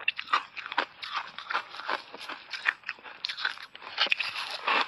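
Ice chunks coated in matcha tea powder being crunched and chewed, a rapid run of crisp crackling crunches, with a louder burst of crunching about four seconds in as a fresh chunk is bitten.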